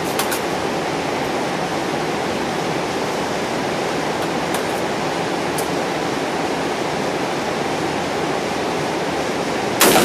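Steady rushing noise with a few faint clicks, then near the end a single loud, sharp gunshot.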